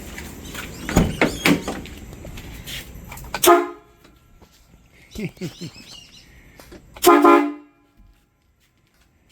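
Aftermarket air-fed train horn on a kei truck sounding two short blasts, one about three and a half seconds in and a slightly longer one about seven seconds in, as a test once the air supply is on. Before the first blast there is steady background noise with a couple of knocks.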